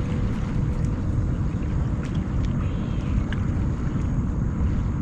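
Steady low rumble of wind buffeting the microphone, with a few faint ticks over it.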